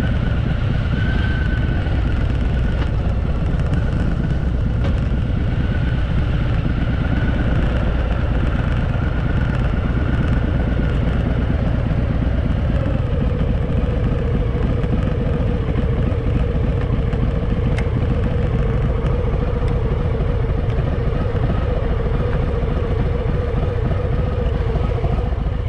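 Harley-Davidson Fat Boy's V-twin engine running steadily on a downhill ride, a low rumble throughout with a steadier note setting in about halfway.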